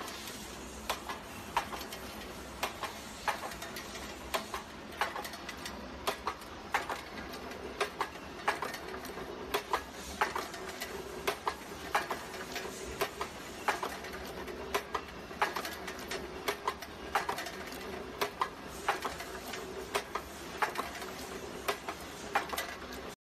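Automatic wire chain making machine running, feeding wire through its straightening rollers and forming it into links, with a regular metallic clacking at about two clicks a second over a steady mechanical hum.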